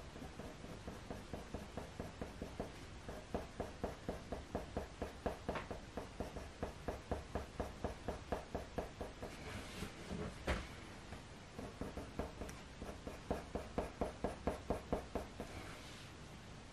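Faber-Castell Polychromos coloured pencil scratching on hot-press watercolour paper in quick short shading strokes, about three a second, in two runs. A single knock comes about ten seconds in.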